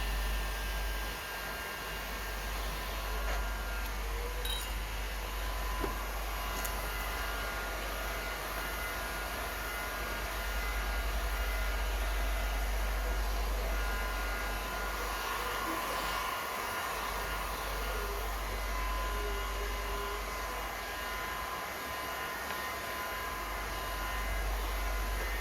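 Small electric heat gun running steadily, its fan blowing hot air with a faint motor whine.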